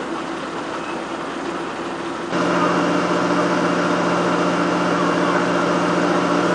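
A motor engine running steadily, a constant low hum over a noisy wash, that jumps louder about two seconds in and holds steady.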